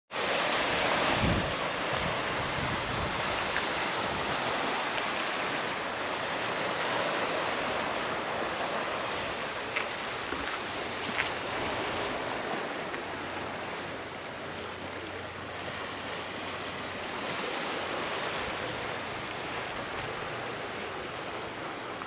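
Sea waves washing against a rocky shore, with steady wind noise on the microphone. Two short sharp clicks stand out about ten and eleven seconds in.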